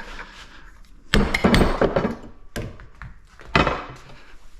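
A few hard thunks and knocks, in irregular clusters, from metal parts of an air filter being handled and knocked about as it is taken apart for its copper.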